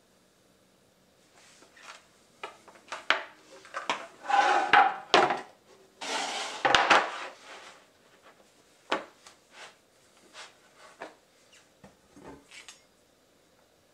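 A synthetic-decking snowskate blank and a wooden board handled on a tile floor: knocked down and slid against each other, a string of knocks with two longer scrapes about four and six seconds in.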